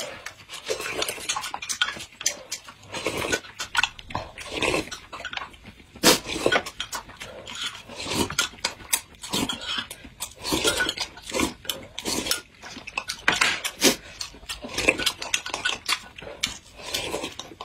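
Close-miked eating sounds from two people: wet slurping from spoons and chewing, with spoons clinking against glass cups.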